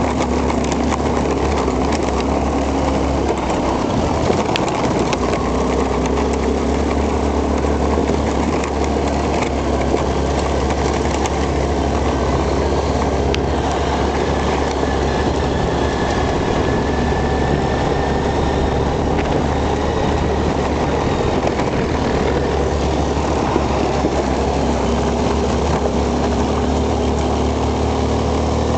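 Quad bike (ATV) engine running under way on a rough gravel track, a steady drone whose pitch drifts gently up and down with the throttle, mixed with rumble from the ride.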